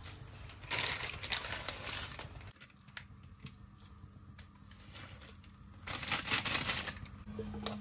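Instant-noodle packet crinkling and tearing as it is handled and opened, in two bursts about five seconds apart, the second louder.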